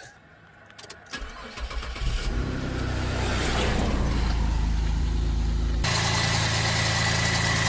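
Holden VF Commodore engine cranking on the starter about a second in, catching, then idling steadily. This is its first start after a fresh oil and filter change.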